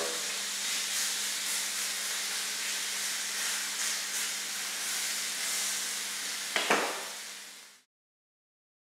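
Ribeye steak sizzling steadily in a hot frying pan, just turned over to sear the second side. A single knock comes about six and a half seconds in, then the sizzle fades out to silence near the end.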